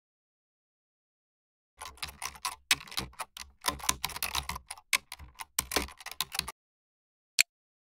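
Computer keyboard typing: a quick, uneven run of keystrokes lasting about five seconds, followed by a single click near the end.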